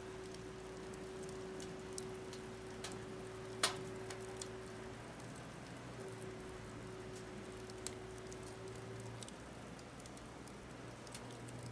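Firewood crackling in a fire pit: scattered sharp pops and ticks, one louder pop about three and a half seconds in, over a faint steady hum.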